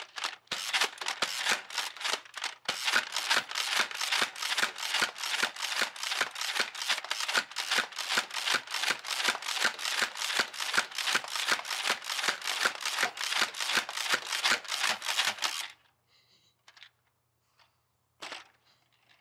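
X-Shot Crusher spring-powered, chain-fed foam dart minigun firing rapidly as its handle is worked: a steady series of sharp clacks, about four a second, that stops after about fifteen seconds. A single faint knock follows near the end.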